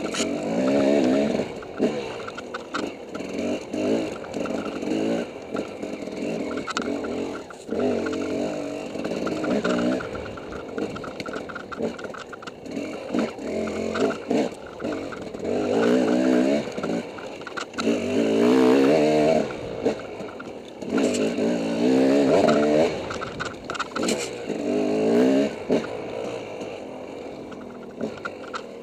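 Dirt bike engine revving up and easing off again and again in short surges of throttle as the bike is ridden over rough ground, with scattered knocks and rattles.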